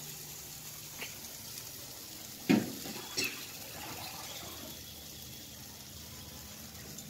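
Cooked toor dal sizzling in a kadai of hot oil tempering, just after it has been added. A steel ladle knocks against the pan twice, about two and a half seconds in and again just after.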